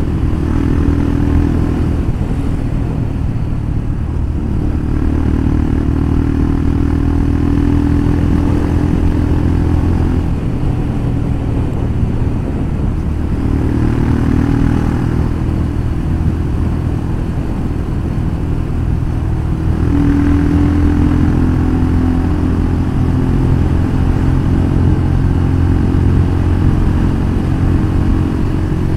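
Royal Enfield Scram 411's single-cylinder engine running through an aftermarket Powerage full-system exhaust, a loud, steady exhaust note that shifts in pitch a few times as the revs change.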